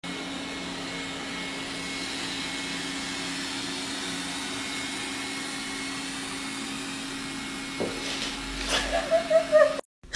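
Robot vacuum cleaner running with a steady hum as it drives across a wooden floor. Near the end a knock and a brief wavering voice-like sound rise above it.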